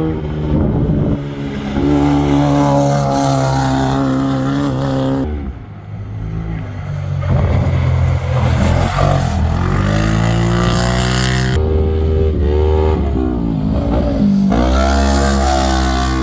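Off-road vehicle engines running hard at high revs, their pitch climbing and then dropping several times as they accelerate.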